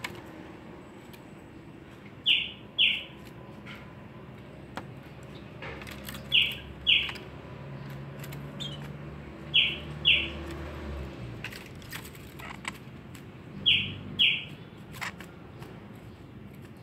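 Pet bird giving short downward-sliding chirps in pairs, two quick notes about half a second apart, repeated four times at intervals of roughly four seconds.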